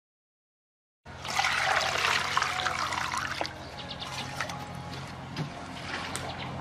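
Water pouring and splashing in a steel pot, starting suddenly about a second in, loudest for the first couple of seconds, then settling to a quieter trickle and slosh.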